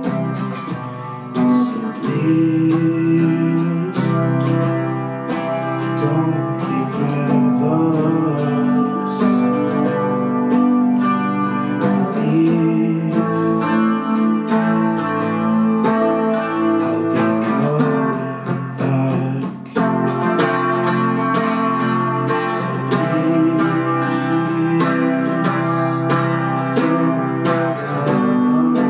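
Electric guitar playing a song, picked chords and notes in a continuous flow.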